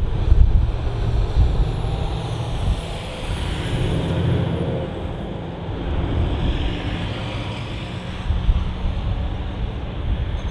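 Jet aircraft passing, its engine hiss swelling through the middle with a faint high whine falling in pitch, over wind buffeting the microphone.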